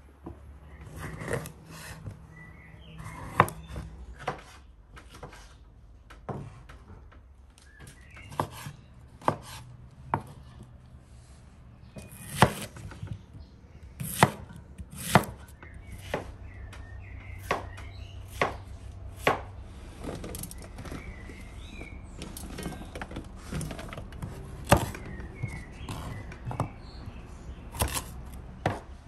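Chef's knife cutting red onion and carrots on a wooden cutting board: irregular knocks of the blade striking the board, some strokes much louder than others.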